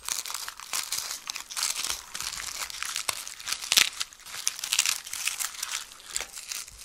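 Fingers rubbing and breaking apart a dried sunflower head to loosen the seeds: a dry, irregular crackling and rustling made of many small clicks, with a louder crackle about halfway through.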